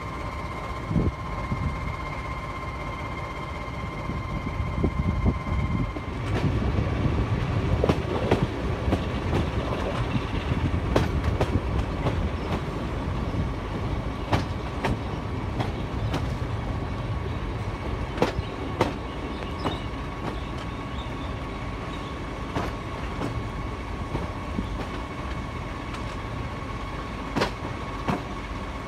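Heritage diesel-hauled passenger train heard from an open carriage window: a steady rumble of wheels on the track with irregular sharp clicks over the rail joints. A steady high whine runs underneath, and it changes slightly about six seconds in, when the running gets louder.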